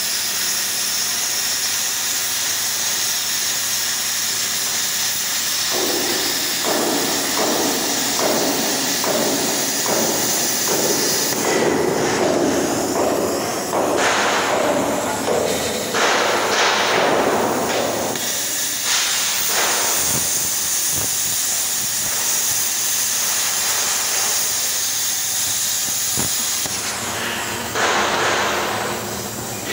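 Plasma cutter torch hissing steadily, its arc cutting steel plate at the start. About six seconds in comes a run of evenly spaced knocks, then louder irregular clatter until about twenty seconds in, over the continuing hiss.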